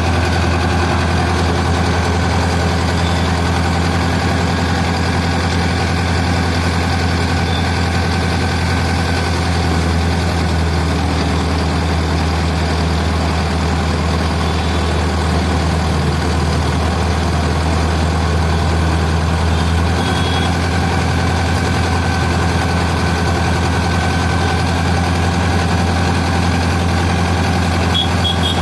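Tractor engine running steadily at a constant speed, a deep even drone.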